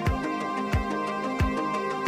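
Background music: held, layered tones over a low drum beat that falls about once every two-thirds of a second.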